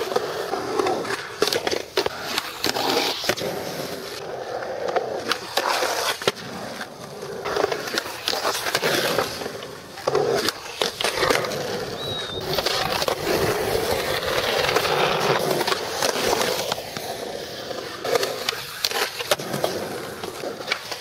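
Skateboard wheels rolling on concrete, broken by repeated sharp clacks as the boards are popped and land.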